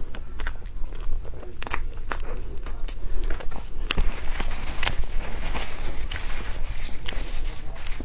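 Close-miked eating: biting and chewing, with many irregular crunchy, crackling clicks.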